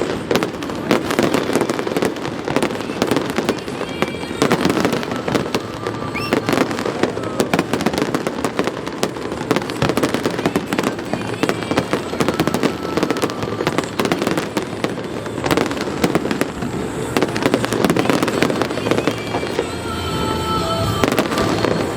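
Fireworks display: a dense, continuous run of bangs and crackle from aerial shells bursting in rapid succession.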